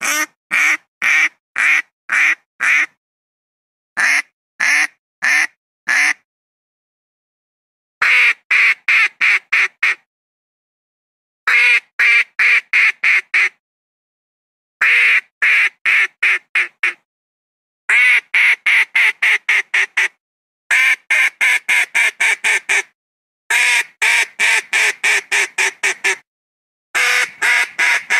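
Philippine duck quacking in bouts of about four to ten quick quacks, each bout about two seconds long, with short silent gaps between them.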